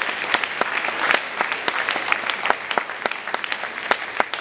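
Audience applauding, the dense clapping beginning to thin out into fewer, separate claps near the end.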